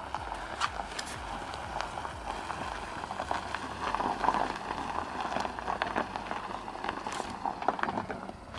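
Tyres of an Acura MDX SUV crunching over loose gravel as it rolls slowly past, with a steady crackle and many small stone pops. It is loudest as the car passes closest, about halfway through.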